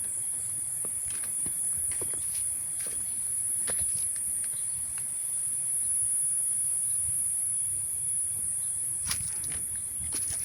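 Footsteps of a hiker walking on a forest trail, irregular steps about once a second, over a steady high-pitched drone of insects.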